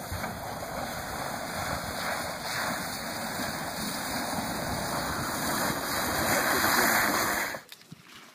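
Steady rushing, splashing noise of a golf cart's tyres churning through water and mud in a waterlogged ditch. It grows louder as the cart comes closer and cuts off suddenly near the end.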